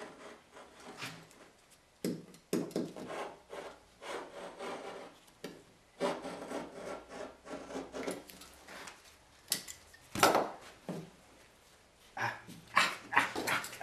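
Knife cutting through glass cloth around a fiberglass hull patch: irregular scraping and rasping strokes with short pauses. Near the end the trimmed cloth and plastic film are pulled away, giving louder crackling and tearing.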